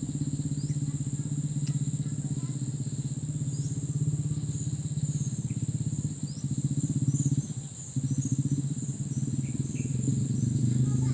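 A low, rapidly pulsing drone that dips briefly about seven and a half seconds in, with insects trilling steadily above it and a few short, high chirps.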